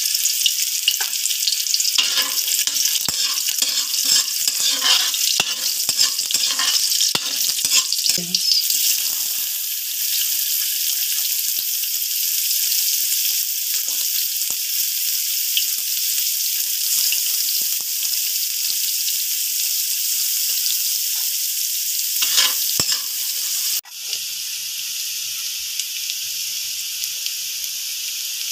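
Garlic, ginger and onion sizzling in hot oil in a wok, with irregular taps and scrapes of stirring through the first several seconds. There is a sudden break about three-quarters of the way through, after which the sizzle runs a little quieter and steadier.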